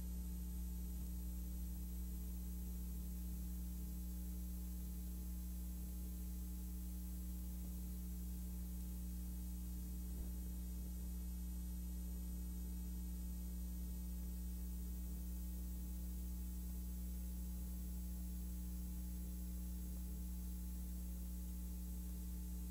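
Steady electrical hum with faint hiss on a silent film's soundtrack, with no sound from the scene itself. One faint click about ten seconds in.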